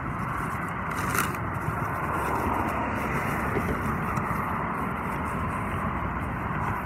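Steady rushing outdoor background noise, the kind made by wind on the microphone and street traffic, with one sharp click about a second in.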